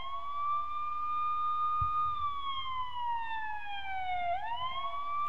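Siren wailing: one high tone holds steady, falls slowly over about two seconds, then swoops quickly back up near the end.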